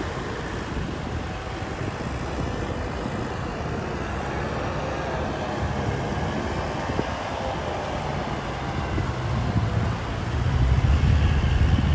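Two Kubota tractors' diesel engines running steadily under load as they drive rotary tillers through a flooded rice paddy. The low rumble grows louder for the last couple of seconds.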